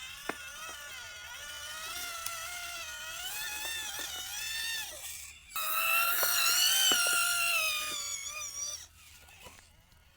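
Small electric motor and gears of a radio-controlled toy vehicle whining, the pitch wavering up and down with the throttle, with a few clicks. The whine is louder for about three seconds from halfway in, then dies away near the end.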